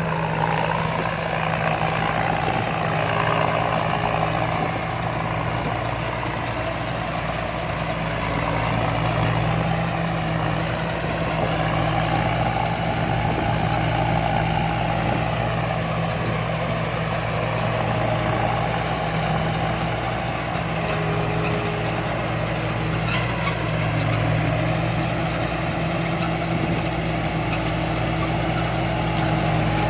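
Rice combine harvester's engine running steadily with a constant low hum.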